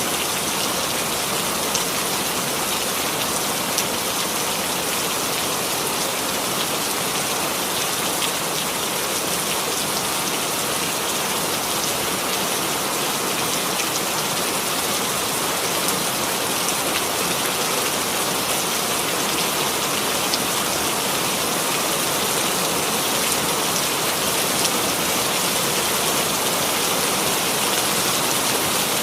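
Steady rain falling: an even, unbroken hiss of many drops that does not change throughout.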